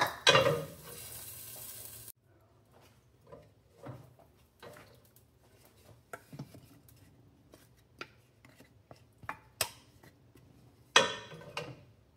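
A spoon stirring chunks of carrot and potato in a slow cooker's crock. It clatters and scrapes at the start and again about eleven seconds in, with scattered light knocks between.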